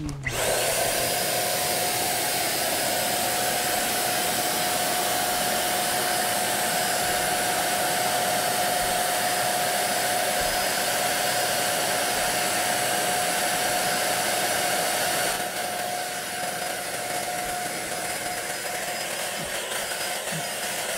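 Handheld corded electric paint sprayer running steadily while it sprays baseboard trim: a steady whine over a loud hiss. It starts right at the outset and drops a little in level about fifteen seconds in.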